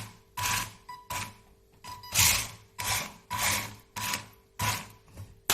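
WLToys 144001 RC car's motor and drivetrain spinning up in short throttle blips, about two a second, each a brief whirring, grinding burst. The rebuilt front differential is in the wrong way round.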